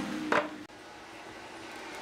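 A single sharp knock of a wooden board set down against the workbench, about a third of a second in.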